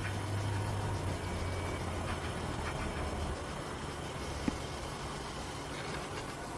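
A low, steady mechanical hum, like a motor or engine running, that fades out about halfway through, with one short sharp click near the end.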